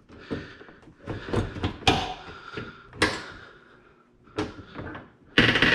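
GE Profile dishwasher door being worked off its hinges and slid onto a countertop: a series of knocks and clunks with scraping and rattling in between, the loudest about two to three seconds in.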